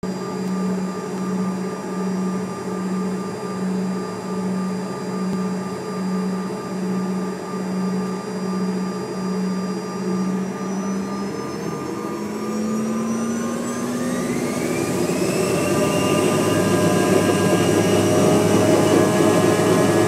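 Jet airliner's engines heard from inside the passenger cabin. They idle at first with a hum that throbs about once a second. A little past halfway they spool up toward takeoff power: a whine that climbs in pitch and grows louder.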